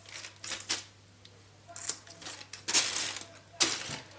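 Clicks and scrapes of kitchen utensils and fish being handled on a plastic plate, coming in four short bursts, the loudest about three seconds in.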